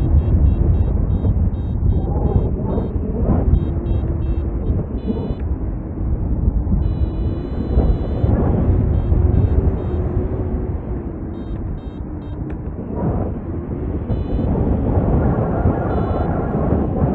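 Wind rushing over the microphone in flight, with a paragliding variometer beeping in quick runs of short high tones, the signal that the glider is climbing in lift.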